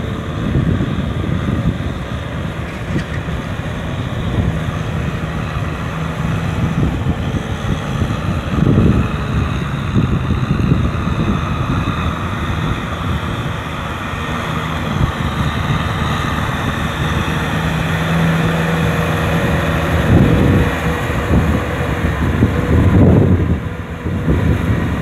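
Kubota M6040SU tractor's diesel engine running steadily under load while it drags a rotary tiller through flooded paddy mud. Wind buffets the microphone in gusts.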